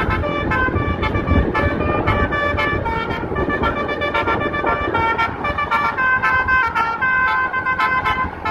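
Basuri telolet musical air horn on a bus playing a melody in quick, separate pitched notes, over a steady low rumble.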